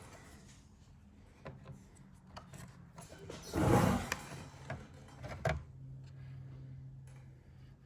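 Hands working with motorcycle parts and wiring: a few light clicks and knocks, and one loud scraping rub a little past halfway. A faint steady low hum runs through the later part.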